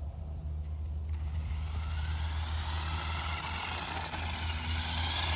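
A vehicle drawing near: a rushing motor-and-tyre noise swells from about a second in and is loudest near the end, over a steady low rumble.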